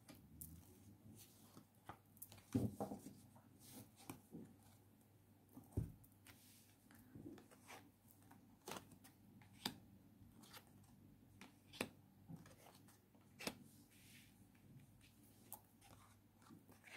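Tarot cards being handled: quiet, scattered taps, slides and flicks as cards are drawn from a deck and laid down on a table, with a low thump about six seconds in.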